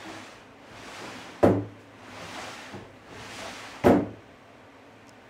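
Two long wooden truck bed drawers sliding along their wooden frame with a rushing scrape, each shutting with a heavy knock, about a second and a half in and again near four seconds.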